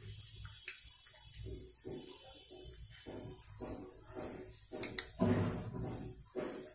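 Hot oil sizzling and bubbling around black-eyed pea vadas deep-frying in a pan, with a crackle that keeps rising and falling and a louder surge of sizzling about five seconds in.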